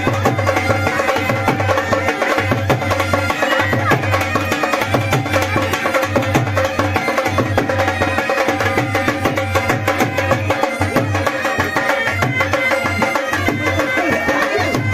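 Music with busy drum percussion over a steady beat.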